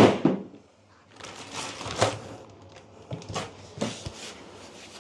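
A cardboard packing panel being pulled away from a plastic-wrapped espresso machine: irregular rustling and scraping of cardboard and plastic film, with a few short knocks.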